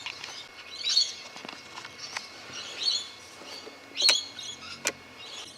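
Birds chirping in short repeated calls in the background, with two sharp clicks about four and five seconds in.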